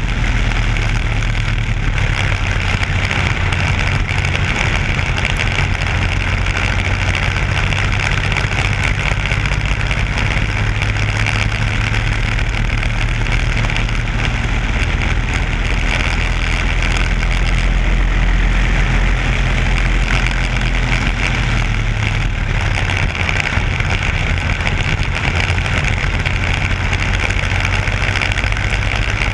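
Briggs & Stratton Animal four-stroke single-cylinder kart engine running hard at racing speed, heard from the kart itself with steady wind and road rush. The sound is steady and loud, swelling a little about two-thirds of the way through.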